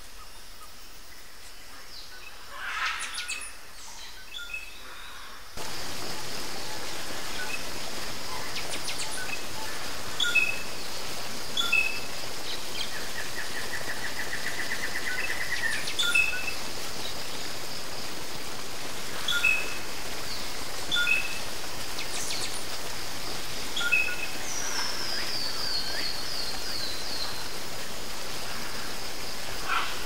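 Steady rush of a waterfall that turns suddenly louder about five seconds in, with birds calling over it: repeated short chirps, a brief trill, and a falling run of quick notes near the end.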